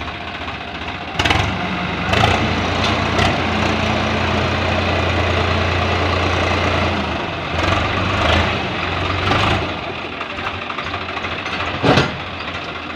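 Swaraj 744 XT tractor's three-cylinder diesel engine running as it manoeuvres. It is revved up about a second in and held there, then drops back toward idle near ten seconds. A few sharp knocks come along the way, the loudest near the end.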